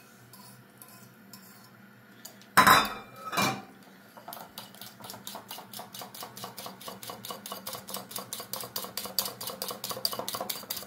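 Two knocks about two and a half seconds in, then eggs and a spoonful of yogurt being beaten in a bowl from about four seconds on: a rapid, regular clinking of the utensil against the bowl.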